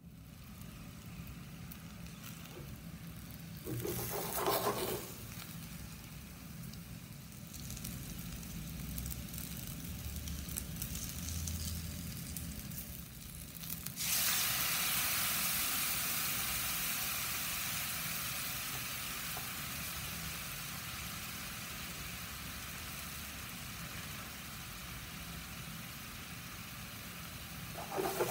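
Starch-coated tuna cubes frying in oil in a nonstick pan, sizzling steadily, with a short louder burst a few seconds in. About halfway through, teriyaki sauce poured into the hot pan makes the sizzle jump suddenly much louder, and it then slowly dies down as the sauce coats the fish.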